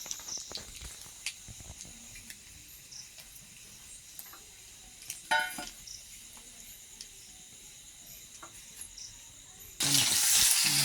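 Food hitting hot oil in a cooking pan: a loud frying sizzle starts suddenly near the end, after several seconds of faint hiss and small utensil clicks.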